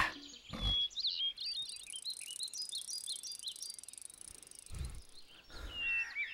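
Small birds chirping and twittering in quick, wavering calls, over a steady high insect buzz. A couple of soft low thuds break in, one early and one about five seconds in.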